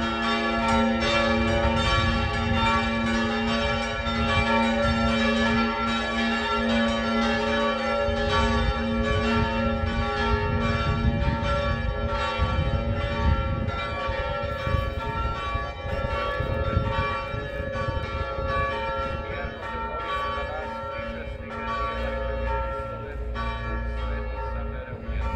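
Church tower bells ringing steadily, struck in quick succession with their tones hanging on. This is the bell ringing at the consecration during Mass.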